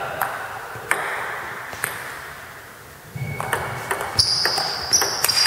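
Table tennis ball clicking sharply off the bat and table, a few scattered hits and then a quicker run of them, echoing in a large hall. Two thin steady high tones come in over the second half.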